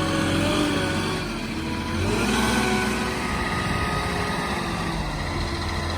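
Vehicle engine running, rising in pitch as it revs about two seconds in.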